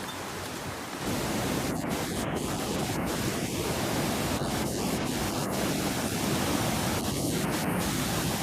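A steady rushing noise that steps up in level about a second in and then holds.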